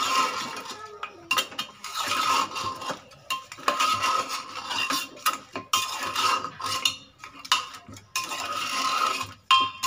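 Slotted metal spoon scraping and clinking against the inside of a metal pressure cooker as mutton trotters, tongue, onions and spices are stirred together, in repeated irregular strokes.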